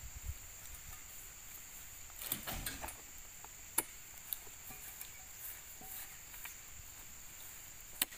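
Steady high insect drone, with a short burst of knocks a little over two seconds in and single sharp clicks near the middle and at the end, as long pointed poles are jabbed into oil palm fruit bunches.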